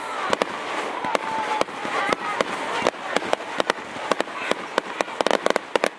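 Fireworks going off: a rapid, irregular run of sharp bangs and pops, densest in a quick cluster near the end.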